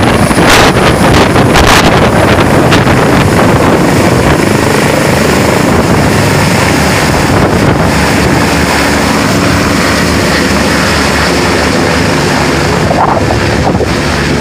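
Eurocopter EC145 twin-turbine helicopter lifting off and climbing away overhead, with steady rotor and turbine noise. Rotor downwash buffets the microphone in the first seconds; after that the sound is steadier and slightly quieter as the helicopter gains height.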